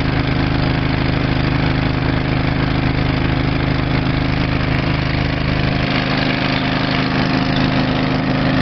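Small engine idling steadily at an even speed, with a constant hum that does not change.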